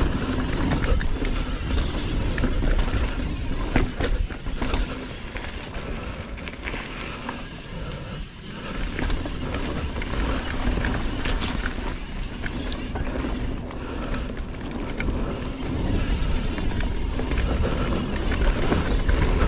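Evil Following mountain bike rolling down a dirt singletrack: tyre noise on the dirt, rattling and knocks from the bike over bumps, and wind rumbling on the helmet camera's microphone. It goes briefly quieter about eight seconds in.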